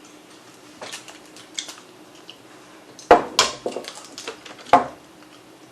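Scattered clicks and knocks of dishes and utensils at a meal table, with two louder knocks about three seconds in and shortly before the end.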